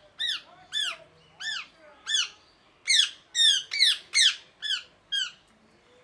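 Ringneck parrot calling: a quick series of about ten short, shrill calls, each bending up and then down in pitch, roughly two a second, then it stops.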